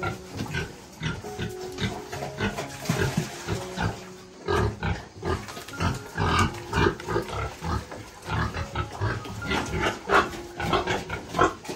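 Pigs grunting: a rapid run of short grunts that grows busier about halfway through.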